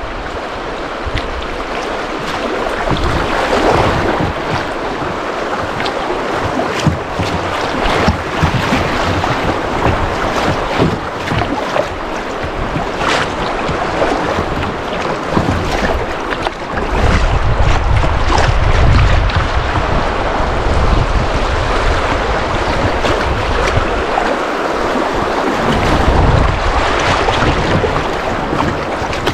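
Rushing, rippling water of a small river rapid around a kayak, with many quick small splashes. Wind buffets the microphone with a low rumble from a little past halfway and again near the end.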